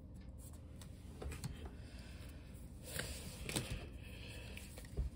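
A stack of Pokémon trading cards handled in the hand: faint rustling and light clicks of card stock, a few louder taps about a second in and around three seconds in.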